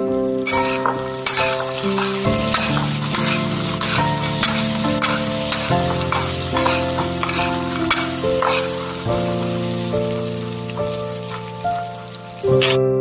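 Metal spoon stirring salted fried peanuts in a ceramic bowl: steady rattling and scraping with sharp clicks, cutting off suddenly near the end. Background piano music plays under it.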